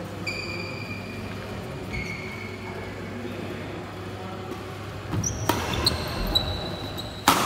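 Badminton doubles rally: sports shoes squeak briefly on the court floor twice, then from about five seconds in come racket strikes on the shuttlecock mixed with more shoe squeaks, the loudest strike near the end.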